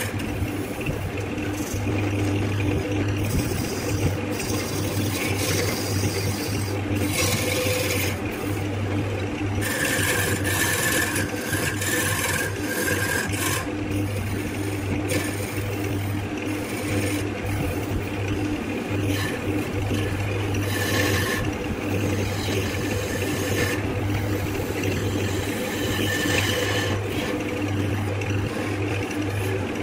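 Wood lathe running with a steady motor hum while a tool scrapes against the spinning wooden workpiece, the rasping growing louder in several separate passes.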